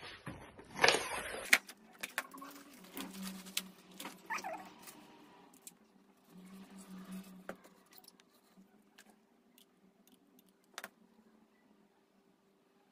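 Hand-work sounds of sisal-type rope being wound and hot-glued around a cat scratching post: a short rustling rush about a second in, then scattered clicks, taps and light rustles over a faint steady hum.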